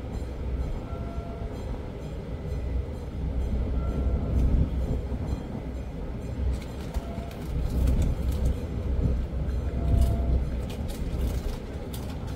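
Steady low rumble on a ship's deck that swells now and then, with scattered light clicks and crackles.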